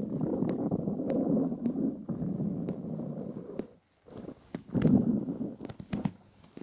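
A hungry, empty stomach growling: a long low gurgling rumble that stops about four seconds in, then a second, shorter rumble, with small sharp clicks through it. The growling comes from hunger after about 28 to 30 hours without food.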